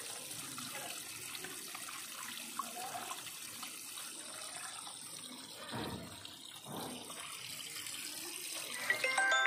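Water from a homemade garden fountain, a hose spout pouring onto stacked rocks, splashing and trickling steadily into a shallow pool. Music starts near the end.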